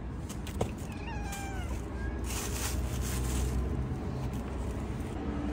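A domestic cat meows once about a second in, a short call that falls in pitch. Plastic bag rustling follows, over a steady low background rumble.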